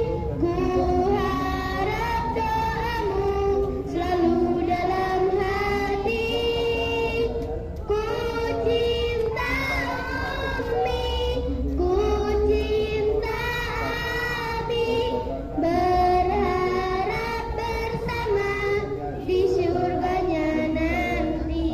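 Children's voices singing a slow melody in long held phrases, over a steady low rumble.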